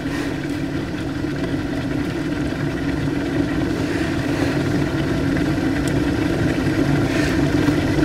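A steady low rumbling drone that slowly grows louder.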